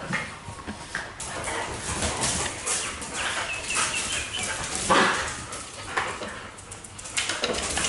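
Dogs playing rough, with barks and high puppy yips. There is a quick run of small squeaks a little past halfway, and one loud bark about five seconds in.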